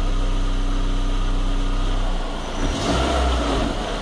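Volkswagen 1.8 AP engine idling, with the alternator and air-conditioning belt running without a squeal now that it is refitted in the correct position. About two seconds in, the engine's steady note changes and a rush of air noise comes in as the air conditioning is switched on.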